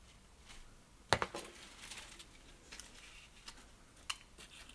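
Faint small clicks and taps of metal fly-tying tools, such as the thread bobbin holder, being picked up and handled, with a sharp click about a second in and another near the end.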